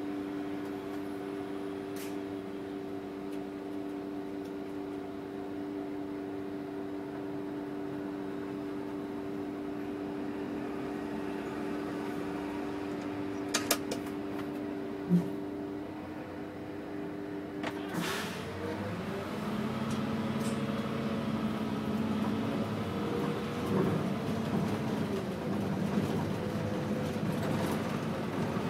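City bus diesel engine idling steadily while stopped, heard from inside the bus. About two-thirds of the way in there is a short hiss, and the engine then revs up and climbs in pitch as the bus pulls away and accelerates.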